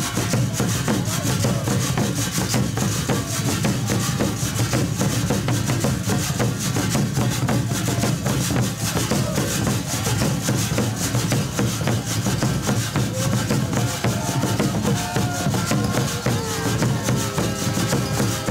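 Congado street music: a fast, steady scraping and rattling of hand percussion such as a reco-reco and shakers, with stringed instruments and accordion playing along.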